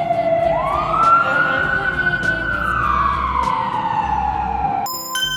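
Fire engine siren wailing: the pitch swoops up about half a second in, holds, then slowly falls and cuts off near the end as a chiming jingle begins.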